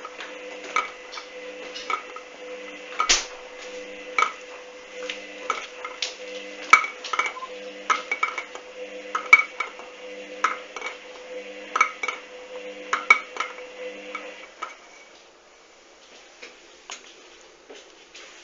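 Hoover washing machine tumbling a duvet on a 40 °C wash: the drum motor whines steadily over a pulsing low hum, with sharp clinking knocks about once a second as the drum turns. About fifteen seconds in, the motor and knocking stop and the drum comes to rest, leaving only faint ticks.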